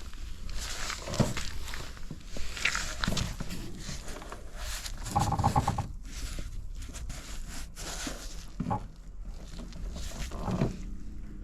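Honda Smart Dio AF56 scooter's carbureted 49cc four-stroke engine running, revved in short throttle blips several times over a steady idle. It revs up cleanly with no abnormal noise.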